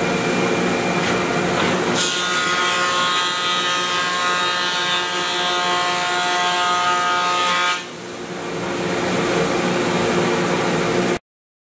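Powermatic thickness planer and its dust collector running. About two seconds in, a board goes through the cutterhead and is planed for about six seconds, adding a high, many-toned cutting whine. The machine then runs on without load until the sound cuts off abruptly near the end.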